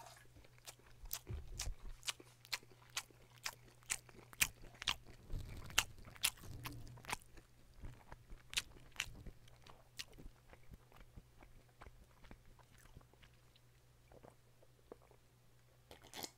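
Close-miked mouth and swallowing sounds of a man drinking makgeolli from a metal bowl: a run of sharp clicks about two a second, thinning out after about ten seconds.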